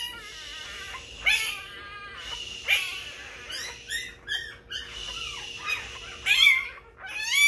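A one-week-old XL American Bully puppy crying in a string of short, high-pitched squeals, about a dozen cries, fussing at being handled.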